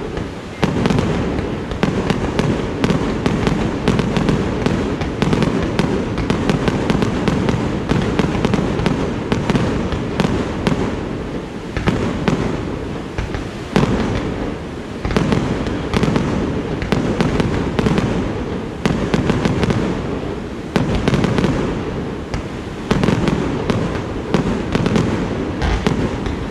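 Aerial fireworks display: shells bursting in rapid, near-continuous succession, sharp bangs over a constant low rumble with brief lulls between volleys.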